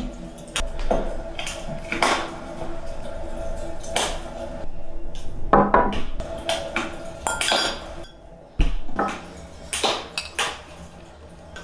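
Glassware clinking and knocking as glass jars, cups and a bottle of roasted grain are handled and set down on a glass tabletop: a string of separate sharp clinks.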